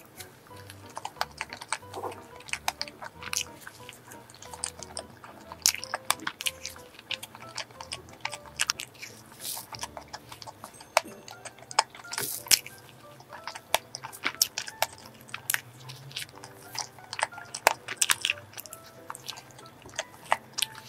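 Close-miked soft, wet chewing and mouth clicks from eating a soft cream-filled donut, irregular and many times over, with soft background music underneath.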